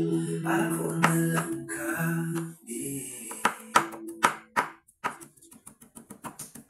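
Background music with singing that fades out a little before halfway. Then a kitchen knife chops garlic on a wooden cutting board, with sharp, even strikes that quicken to about five or six a second.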